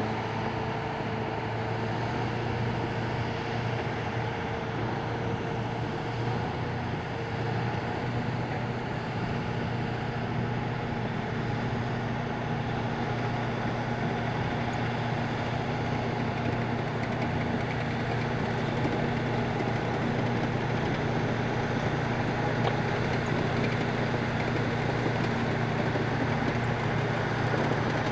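Engine of a tracked all-terrain carrier running steadily under load as it tows a Land Cruiser through a river, a constant drone growing slightly louder toward the end.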